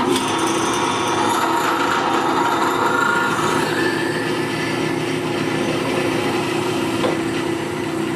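Drill press running a straight-flute reamer down through the aluminum exhaust port of a big-block Chevy cylinder head: a steady motor hum with the reamer's cutting noise.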